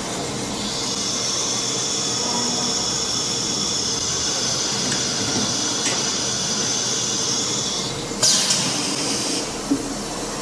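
CNC router with an automatic tool changer working through a tool change: a steady hiss that lasts about seven seconds, then a sudden, sharper burst of hiss about eight seconds in.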